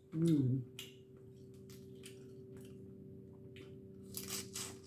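Close-up eating of boiled crawfish: a brief hummed "mm" at the start, then scattered soft wet mouth clicks while chewing, and a cluster of louder eating noises near the end. A steady low hum sits under it all.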